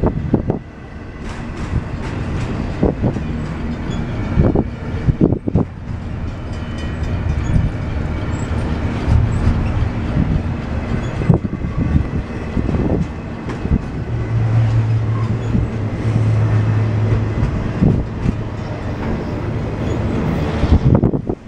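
Freight train of double-stack container well cars rolling past on the rails: a steady low rumble of wheels with irregular knocks and rattles from the cars. A low steady hum joins for about three seconds past the middle.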